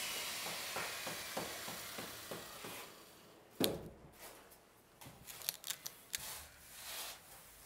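Sneakers shuffling on a concrete ledge: one sharp knock a little past three seconds in, then a scatter of small clicks and scrapes. A faint hiss fades out over the first few seconds.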